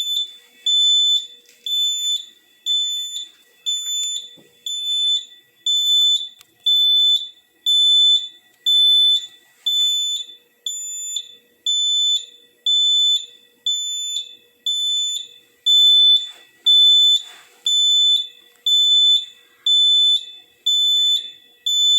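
Fire alarm system's electronic sounder beeping in an even, high-pitched pulse, a bit more than one beep a second.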